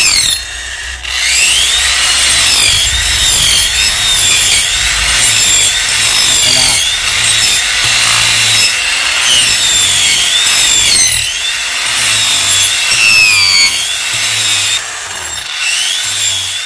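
Cordless angle grinder with a rasp disc grinding into a stump's end grain. The motor's whine wavers up and down over a rough scraping as the disc bites into the wood. It eases off just after the start and picks up again about a second in, with another brief easing near the end.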